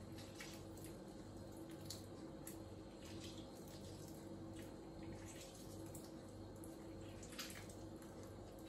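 Lemon half squeezed by hand over a bowl of chopped garlic scapes: faint, scattered drips and squelches of juice, over a steady low hum.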